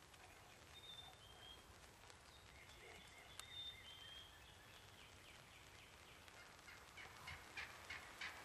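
Faint dawn woods with bird calls: a few thin, high whistled notes, then near the end a quick series of short, sharp notes, about five a second.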